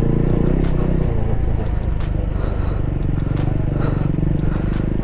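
Motorcycle engine running steadily while riding a rough dirt trail, with a handful of short clicks and rattles scattered through it.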